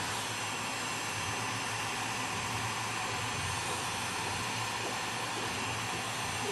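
Heat gun blowing hot air with a steady, even hiss, softening the adhesive under a Samsung Galaxy S7's glass back cover so it can be pried off.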